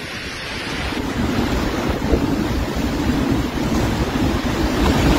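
Storm-force wind blowing hard and buffeting the microphone with a heavy low rumble, driving rain along with it, getting slightly louder toward the end.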